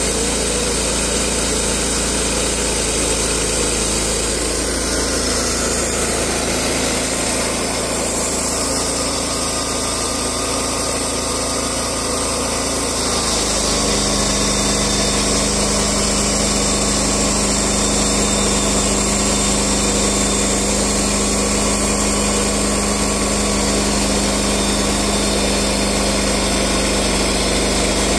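Portable band sawmill's engine running steadily. About halfway through, its sound changes and settles into a steadier hum.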